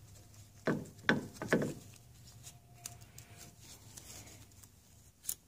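Small tool scraping and rubbing out gunk around the water pump housing and water pickup holes of an outboard's lower unit: three short scrapes about a second in, then fainter scratching and light clicks, with one sharper click near the end.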